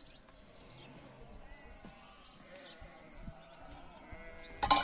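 Sheep bleating, with one loud, short bleat just before the end over fainter calls in the background.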